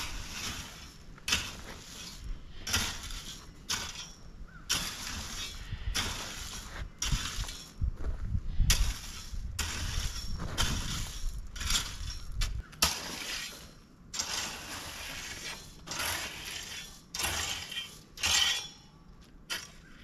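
Shovel scooping and tossing loose rock: a steady run of scraping, clattering strokes, about one a second, each a rush of rattling stones. A low rumble runs underneath and stops about two-thirds of the way through.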